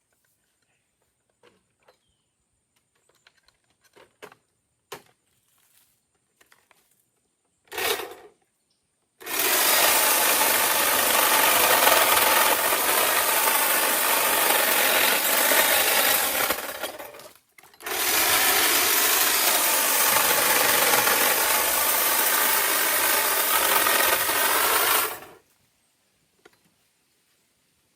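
Small power saw cutting tree branches: a short blip of the motor, then two long runs of about eight and seven seconds separated by a brief stop, the motor's pitch wavering as it bites into the wood.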